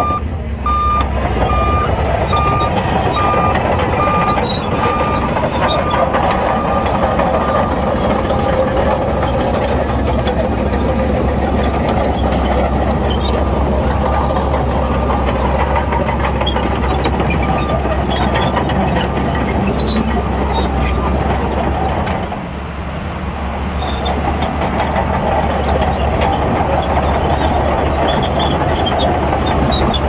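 Bulldozer's diesel engine running steadily, with its reverse alarm beeping evenly for about the first twelve seconds as it backs up, fading out. The engine note drops briefly about twenty-two seconds in, then picks up again.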